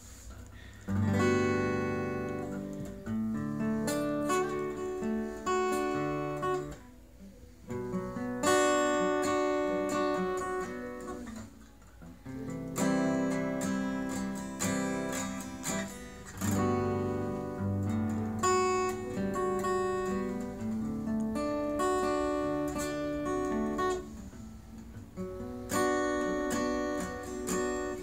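Martin acoustic guitar strummed through a chord progression, the chords ringing and changing every second or two, with a few short breaks between phrases.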